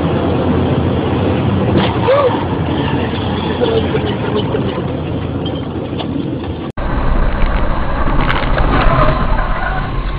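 Dashcam recording of a car's interior at highway speed: steady road and engine noise. About seven seconds in it cuts abruptly to another car's cabin noise.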